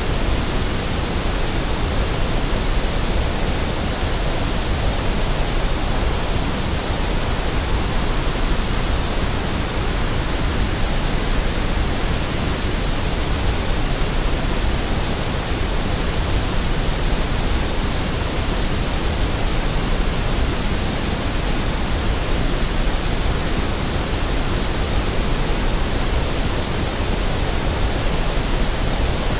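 Steady white noise: an even, unchanging hiss spread across all pitches.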